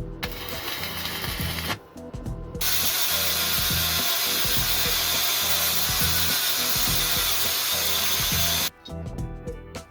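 A power tool runs steadily with a dense, hissing rasp in two runs: a short one at the start and a longer, louder one from about two and a half seconds in until shortly before the end. Background music plays faintly underneath.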